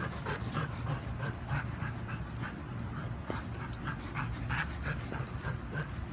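German Shepherd Dog panting steadily with her tongue out, about three breaths a second, over a steady low background hum.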